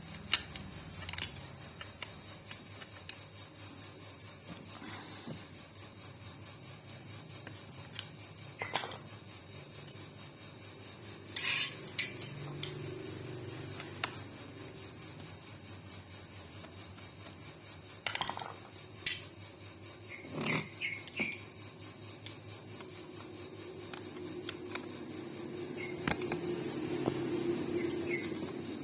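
Scattered metal clinks and knocks with some scraping, from tools and sewing-machine parts being handled while the machine's burnt-out motor is being taken off for replacement.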